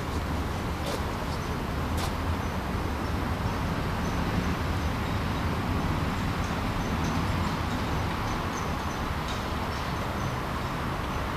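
Steady outdoor background noise with a low rumble, and faint short high chirps now and then.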